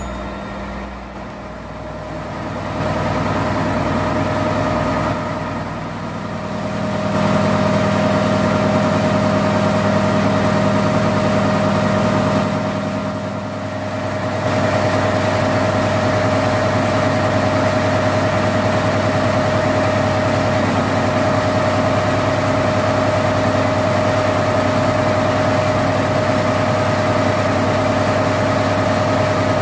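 Tugboat engine-room machinery running: a loud, steady engine drone with a steady high whine over it, dipping briefly about two-thirds of the way through.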